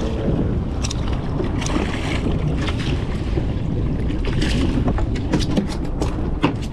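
Wind buffeting the microphone on a small boat at sea, a steady low rumble, with water sounds and a scattering of short sharp clicks.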